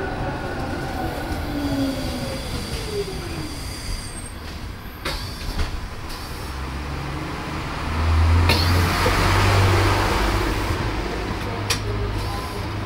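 Esslingen GT4 articulated tram running on metre-gauge track, heard from inside the passenger compartment. A whine falls in pitch over the first couple of seconds, a few sharp clicks come from the rails, and a louder low rumble sets in about eight seconds in.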